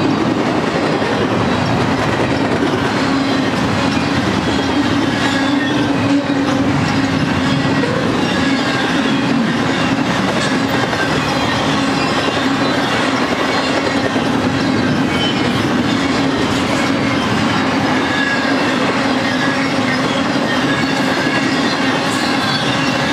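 Double-stack intermodal freight train's container well cars rolling past at close range: a steady, unbroken rolling noise of wheels on rail with a constant hum.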